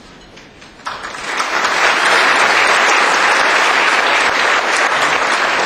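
Audience applauding: it breaks out suddenly about a second in and swells within a second to full, steady applause.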